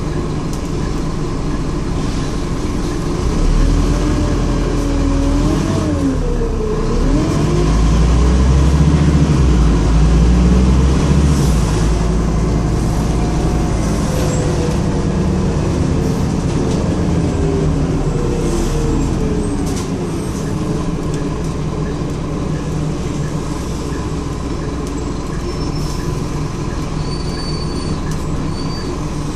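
Scania N230UD double-decker bus heard from the upper deck while driving, its five-cylinder diesel engine and drivetrain giving a steady rumble. A whining tone dips about six seconds in and then climbs again. The rumble grows louder for a few seconds around the middle.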